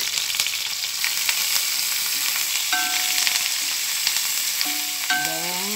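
Garlic, onion and fresh curry leaves sizzling and crackling steadily in hot cooking oil in a pot, stirred with a spatula.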